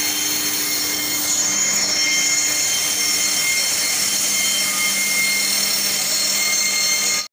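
Steady hiss of pressurised water spraying from a transformer's deluge fire-protection nozzles during a test, with a few faint steady whistling tones over it. It cuts off suddenly near the end.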